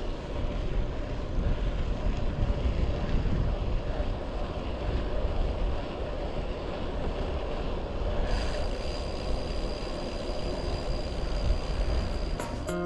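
Wind rushing over the microphone of a GoPro action camera on a moving bicycle: a steady low rumble of buffeting with road and tyre noise under it.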